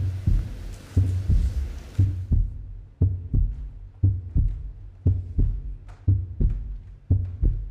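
A song's sparse intro beat: a deep, heartbeat-like double thump about once a second over low bass, with little else in the music. Crowd noise fades out over the first two seconds.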